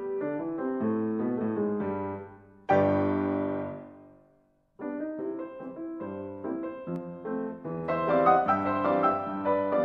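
Solo piano background music: a run of notes, then a loud chord about three seconds in that dies away to a short pause before the playing resumes.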